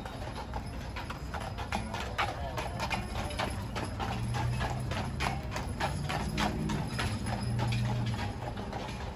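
A horse's shod hooves clip-clopping steadily on the pavement as it pulls a carriage past. A low steady hum runs beneath it and is strongest in the second half.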